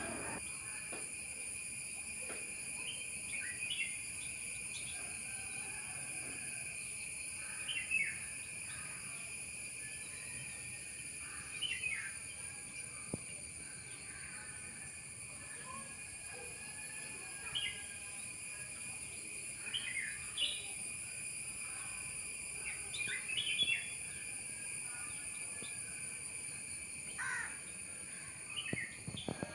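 Small birds giving short, scattered chirps every few seconds over a steady high-pitched background hum.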